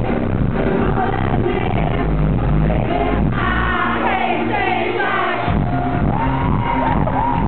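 Live band playing a dance/techno arrangement of a pop song very loud through a club PA, with singing over it, recorded from the crowd so it sounds dull and overloaded. The bass drops out for about two seconds midway and then the pounding beat comes back.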